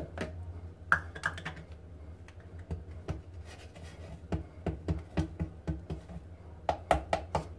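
Flour being tipped from a bowl into a plastic blender jug, with irregular light clicks and taps of the bowl and spoon against the jug.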